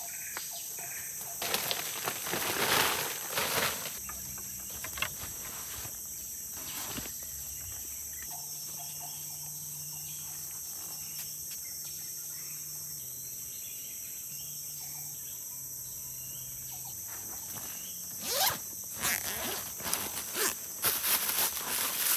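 Steady high-pitched chorus of forest insects. Louder rustling and handling noises come about two to four seconds in and again near the end.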